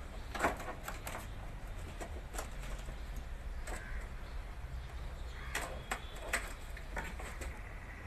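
Plastic and sheet-metal parts of a window air conditioner being handled and fitted back into the chassis: scattered light clicks and knocks.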